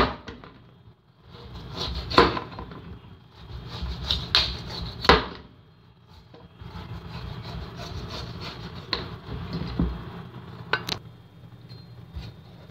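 A pumpkin being cut and scraped with a knife on a cutting board: a few sharp chops in the first half, then a steady rasping scrape, and one more knock near the end.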